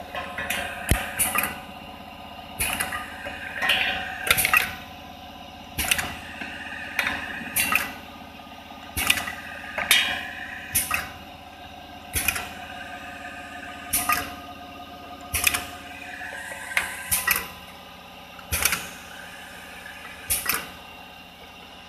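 Small automatic tube filling and sealing machine running its cycle: a steady machine hum with sharp mechanical clacks repeating about every second to second and a half, some in quick pairs, as the turntable carrying the laminated toothpaste tubes indexes and the filling and jaw-sealing stations work.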